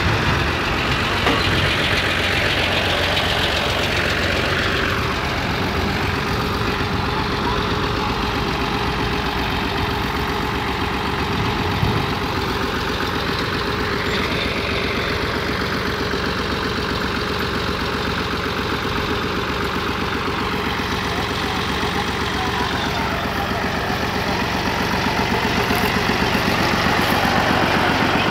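New Holland Fiat 480 tractor's three-cylinder diesel engine idling steadily, a little louder near the end.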